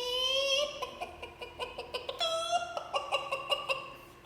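A person imitating hens with their voice: a drawn-out rising call that trails off, then a run of quick clucks, a short squawk about two seconds in, and more clucking.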